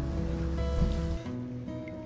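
Background music of held notes, with a low rumble beneath it that cuts off about a second in.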